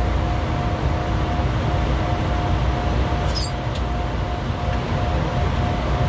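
Steady cockpit noise of a Bombardier Challenger 350 business jet in flight: a low rumble of airflow and engines with a faint steady hum. A brief high squeak sounds about halfway through.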